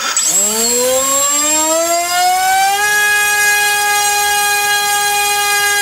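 Turnigy 2826-6 2200 kV brushless outrunner motor driving a TGS 6x5 propeller on a thrust stand: it spins up with a rising whine over about three seconds, then holds a steady high-pitched drone.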